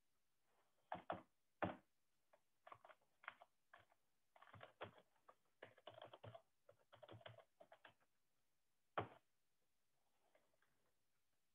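Computer keyboard typing: a run of quick key clicks over several seconds, then a single louder key press about nine seconds in as the Enter key runs the command.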